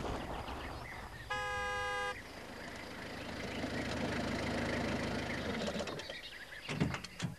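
Small red post van driving up and slowing to a stop, its engine running steadily, with one short horn toot about a second in. The engine sound dies away near the end as the van stops.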